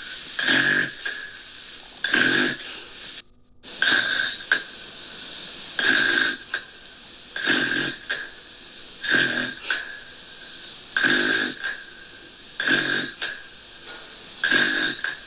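Gentle snoring: a short, hissy snore about every one and a half to two seconds, over a steady background hiss. The sound cuts out briefly about three seconds in.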